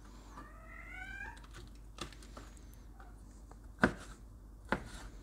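A cat meows once near the start, a drawn-out call of about a second that rises in pitch. After it come a few sharp knocks of a kitchen knife chopping raw chicken on a plastic cutting board, the loudest about four seconds in.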